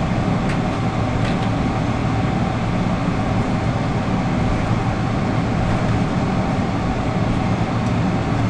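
Steady cabin noise inside a Boeing 777-300ER taxiing in after landing: the GE90 engines at idle and the landing gear rolling over the taxiway make a low, even rumble with a thin steady hum over it.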